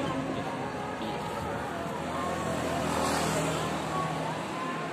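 Motorway traffic noise from a few vehicles: a steady hum of tyres and engines, with a low engine drone growing stronger about three seconds in as a car approaches.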